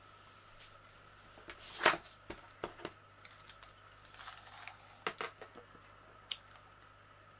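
Scattered clicks, taps and crackles of hands handling a diamond painting canvas and pulling out a retractable soft tape measure to measure it. The loudest is a short crackle about two seconds in.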